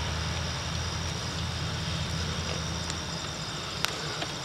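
Outdoor background of a steady low rumble, like distant traffic or an engine, with insects trilling at a steady high pitch. The rumble drops away about three seconds in, and there is one faint click near the end.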